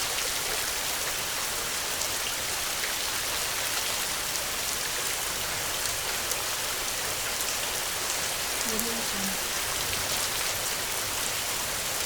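Steady heavy rainfall, a dense even hiss with fine drop ticks. About nine seconds in, a brief spoken "AudioJungle" watermark voice is heard faintly over the rain.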